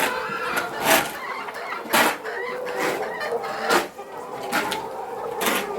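Flock of young hens clucking and chattering steadily, with a few sharp, louder sounds about one, two and nearly four seconds in.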